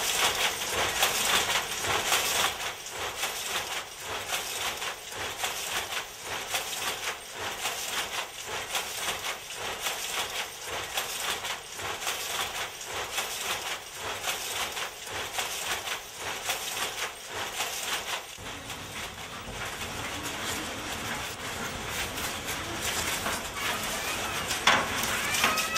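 Wooden handloom clattering: a steady, dense rattle of quick clicks and clacks from the loom's moving parts, with a louder clack and a few short squeaks near the end.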